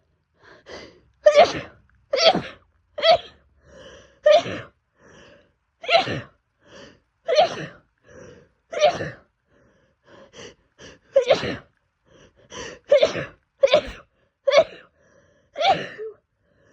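A woman sneezing over and over in rapid succession, about a dozen sneezes mostly a second or so apart, with quick breaths between them: an allergic sneezing fit brought on by cats.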